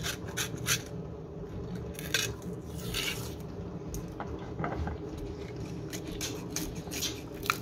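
Gold foil inner seal being picked and peeled off the rim of a glass Nutella jar by fingers: irregular crinkling, tearing and scratching of the foil.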